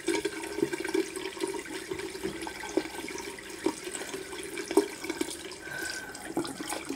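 Bathroom sink tap running steadily, with irregular splashes and drips as a face mask is rinsed off by hand.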